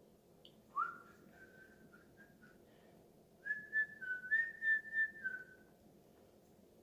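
A person whistling softly: a short rising note about a second in, then a string of short notes that step up and down from about three and a half seconds in.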